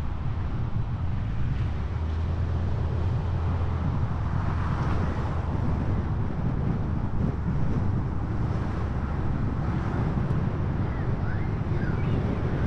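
Wind buffeting the microphone: a steady, gusting low rumble, with a few short faint chirps near the end.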